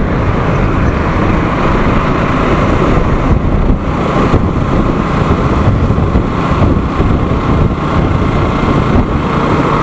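Steady rush of wind over the camera's built-in microphone and engine and road noise from a motorcycle riding at road speed.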